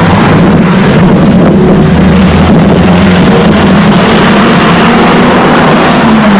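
Loud, steady rumbling noise of passing road traffic, with wind on the microphone.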